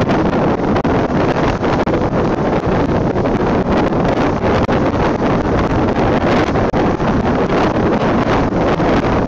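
Strong wind buffeting a phone's microphone in a steady loud rumble, mixed with the wash of storm waves breaking against a breakwater and rocks.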